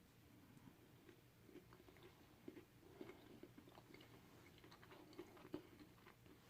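Faint chewing of a fried, coated tofu chicken nugget, with many small irregular mouth clicks.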